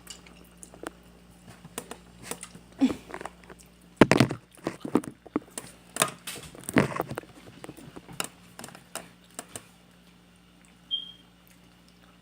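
Wet, sticky chewing of melted gummy-bear slime, with scattered small clicks and a few short louder bursts.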